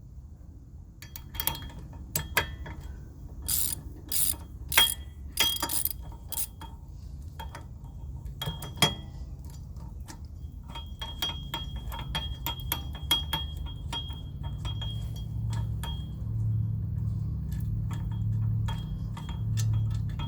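Socket ratchet wrench clicking in quick irregular runs as a long 14 mm hub-assembly mounting bolt is backed out, with sharper metal clicks between runs. In the second half a low hum swells and fades about once a second.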